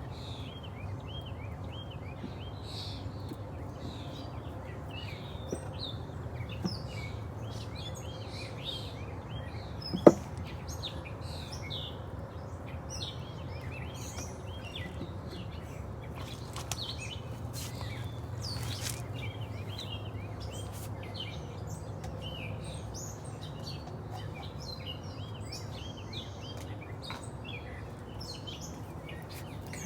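Small birds chirping continuously with quick repeated notes, over a steady low background rumble. One sharp knock about ten seconds in is the loudest sound.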